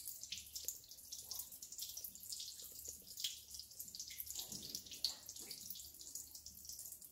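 Water trickling down a rock face and dripping onto stone, a faint patter of many small drops.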